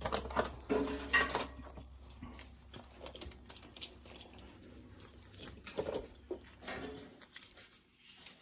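Irregular rustling and clicking as plastic packaging and a bundle of electrical wire leads are handled, the noise coming in short uneven bursts.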